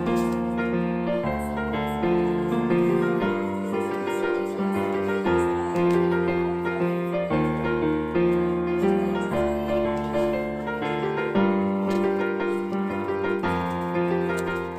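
Instrumental background music, its chords changing every second or two.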